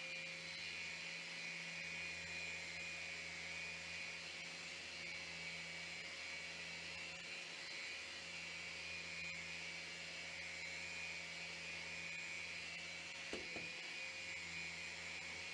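Random orbital sander with its dust-extraction hose attached, running steadily at a constant pitch while sanding an acrylic glass panel with an 800-grit disc. A short knock and a brief dip in the tone come near the end.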